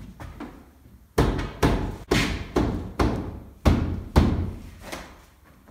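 A run of heavy knocks, about two a second, as the pre-hung front door and its frame are knocked into the rough opening; they start about a second in and grow weaker near the end.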